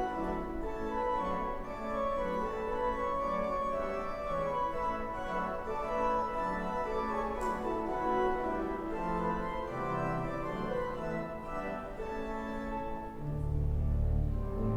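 Church organ playing slow, sustained chords, with deep bass pedal notes coming in near the end.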